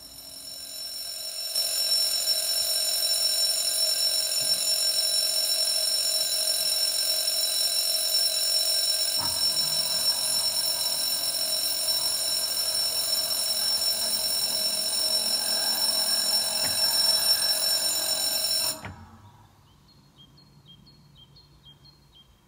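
Level crossing warning bell ringing steadily, warning of an approaching commuter train. It comes up over the first couple of seconds and cuts off suddenly about four seconds before the end.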